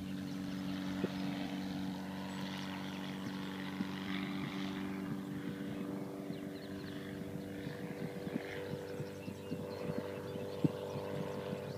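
Cygnet SF-2A homebuilt single-engine propeller aircraft droning steadily as it climbs away after takeoff.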